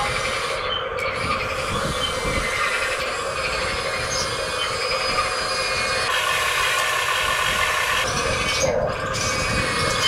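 Small electric motors and gearboxes of a radio-controlled Huina excavator whining steadily as it slews and works its boom and bucket in the mud.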